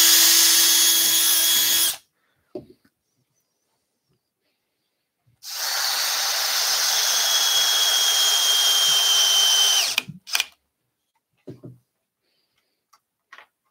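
Cordless drill running in two steady bursts boring into wood: about two seconds drilling a pilot hole, then, after a pause of a few seconds, a longer run of about four and a half seconds that winds down with a falling whine. A few light clicks follow.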